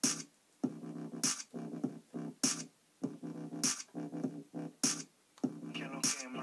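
Instrumental break of a pop song: short chopped synth chords over a beat, with a sharp hit about every 1.2 seconds.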